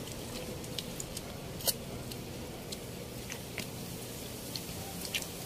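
People chewing and smacking while eating with their hands, with scattered small sharp clicks over a steady low background hiss.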